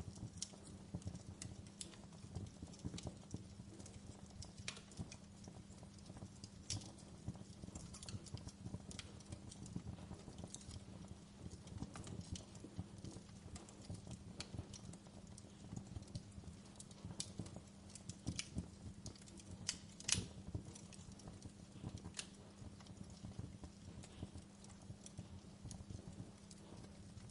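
Wood fire crackling in a fireplace: irregular snaps and pops over a low steady rumble, with one sharper pop about twenty seconds in.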